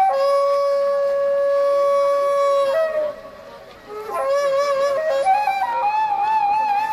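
Slow traditional Korean melody on a solo flute-like wind instrument: one long steady note, a short break, then notes with a deep wavering vibrato that climb step by step.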